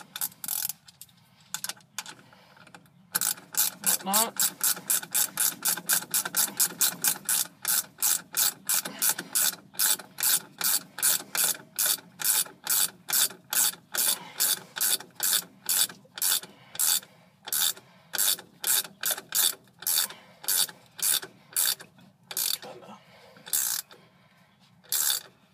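Hand socket ratchet clicking stroke after stroke as it runs down the lower mounting nut of a shock absorber. The clicks come about four a second, stop briefly near the start, and slow to a stroke or two a second toward the end as the nut is cinched down.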